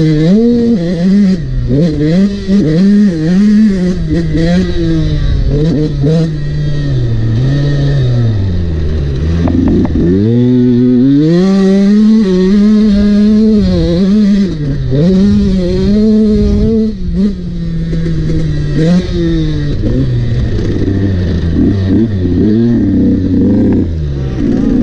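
Motocross bike's engine revving up and easing off over and over as it is ridden around a dirt track, its pitch climbing and falling with throttle and gear changes. About nine seconds in the engine drops to a low note, then picks up again about a second later.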